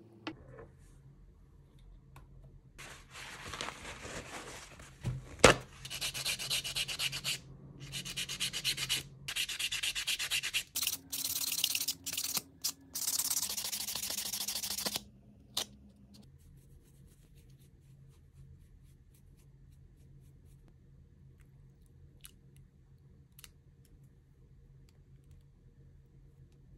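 Sponge nail file rubbed back and forth against a nail in runs of quick filing strokes, from about three seconds in until about fifteen seconds in, with one sharp click about five seconds in. After that only a few faint ticks.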